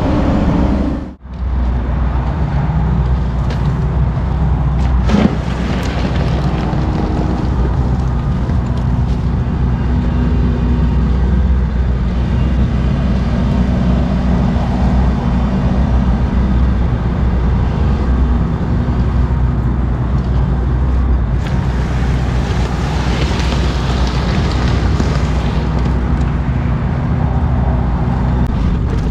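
Diesel engine of a tracked dumper or excavator running steadily at working revs, heard close up. The sound drops out for a moment about a second in, and there is a single knock about five seconds in.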